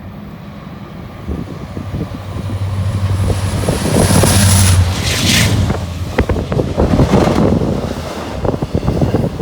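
Norfolk Southern diesel freight locomotives passing close by. Their engines give a deep drone that swells to a peak about halfway through, with a thin high whine. Then comes a rapid clatter of steel wheels over the rail as the intermodal cars follow, with wind buffeting the microphone.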